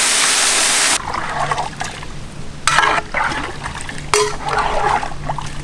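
Marinated stingray pieces and their thick masala liquid poured from a metal bowl into a large cooking pot, a loud rushing splash that stops about a second in. After it, a long metal ladle stirs in the pot, with a few scrapes and clinks against the metal.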